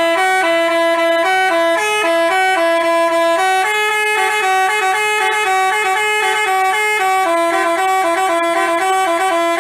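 Telolet basuri bus horn playing a quick melody without a break, two horn pitches sounding together and stepping from note to note several times a second.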